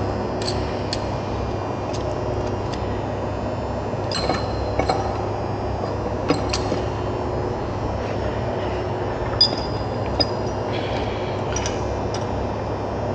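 Steel gearbox parts of a forklift differential, the ring gear, carrier and bearings, clinking lightly against each other and the housing as they are handled and fitted together: about a dozen short, scattered clinks over a steady low hum.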